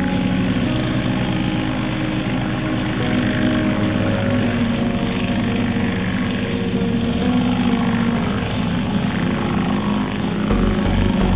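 Pressure washer's engine running steadily with a constant droning hum and a fast flutter while the water jet sprays.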